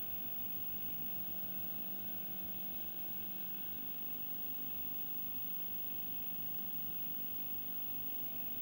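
Steady background hiss with a low electrical hum and no distinct events: room tone behind silent footage.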